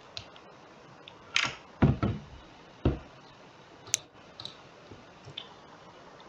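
A few dull knocks and thumps about two and three seconds in, then a sharp computer-mouse click about four seconds in and a few faint clicks.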